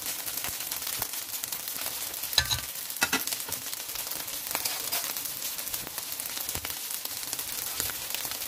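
Egg-coated rice frying in oil in a pan over high heat: a steady sizzle with fine crackles, and two sharp knocks about two and a half and three seconds in.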